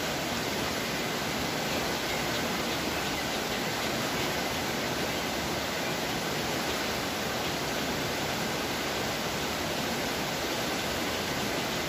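A river in flood rushing over rocks: steady, even noise of fast, muddy water, the river swollen over its banks by torrential rain.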